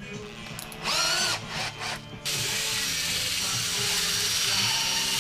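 Cordless drill spinning a long rod chucked in it: a couple of short bursts with a rising whine, then a steady run from about two seconds in.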